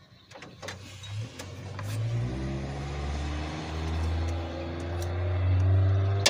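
An unseen motor vehicle's engine running nearby, a low hum that grows louder over several seconds. A few sharp clicks of tools on metal come in the first two seconds.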